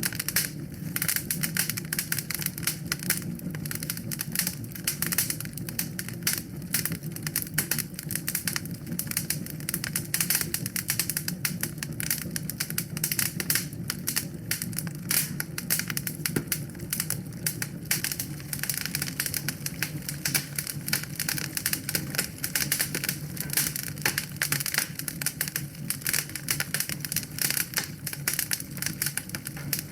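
Wood fire in a fireplace crackling: a continuous stream of irregular pops and snaps over a steady low rush.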